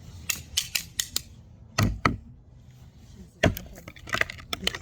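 Irregular sharp clicks and knocks from handling slime-making things, with louder knocks about two seconds and three and a half seconds in, and a quick run of clicks near the end.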